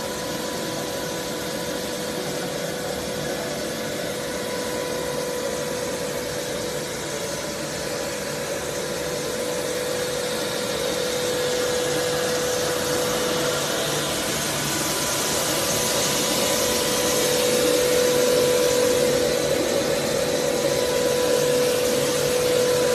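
Biodegradable blown-film extrusion line running: a steady machine drone with a constant hum over an even hiss. It grows somewhat louder and hissier about halfway through.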